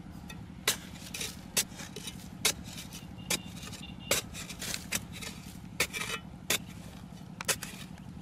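A long knife blade stabbing into hard, dry earth to dig out a hole, about once a second: each stroke a sharp knock, several followed by a short scrape of loosened soil. A steady low drone runs underneath.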